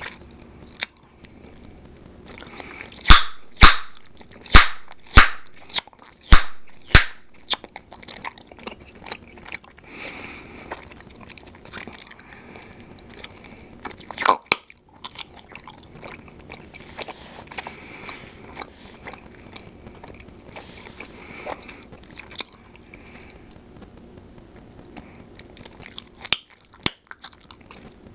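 Bubble gum being chewed with soft wet mouth sounds, broken by sharp gum pops. There is a quick run of about eight loud pops a few seconds in, a single pop about halfway through, and a couple more near the end.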